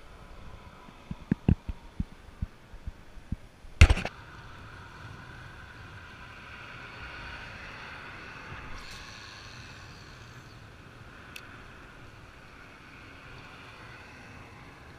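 A quick run of knocks and taps from handling fishing tackle, then one loud sharp bang about four seconds in. After it comes a steady rushing noise that swells in the middle and fades, with one small click near the end.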